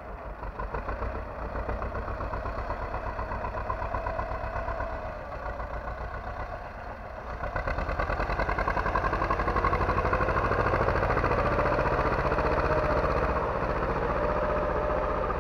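T-25 Vladimirets tractor's two-cylinder air-cooled D-21 diesel running steadily under load as it pulls a plow through the soil. It grows louder about halfway through as the tractor comes close, then eases slightly near the end.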